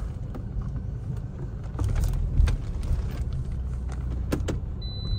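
Car idling, heard from inside the cabin as a steady low rumble with a few light clicks and knocks. Near the end a high-pitched electronic beep starts, repeating in short pulses.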